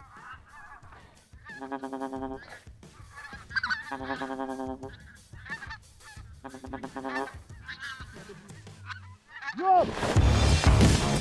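Geese honking: four long, steady honks about every two and a half seconds, over fainter, wavering honking from a flock. About ten seconds in, a much louder dense sound cuts in.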